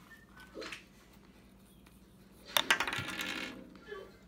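A small hard object clatters onto a kitchen surface about two and a half seconds in: a sharp knock followed by about a second of quick rattling as it settles.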